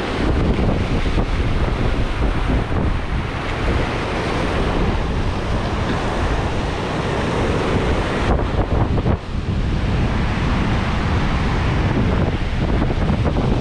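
Ocean surf breaking and washing over a rock shelf, with wind buffeting the microphone.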